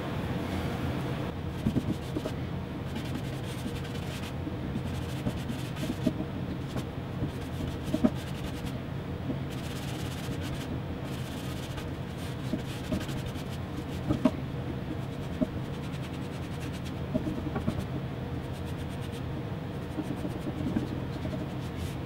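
Paintbrush strokes spreading water-based polyurethane inside a plywood drawer box: soft scratchy rubbing with occasional light taps, over a steady low hum.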